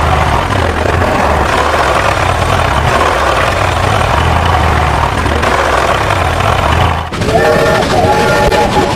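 Low, steady engine rumble like a heavy vehicle idling, which breaks off about seven seconds in and gives way to a train horn sounding in short repeated blasts.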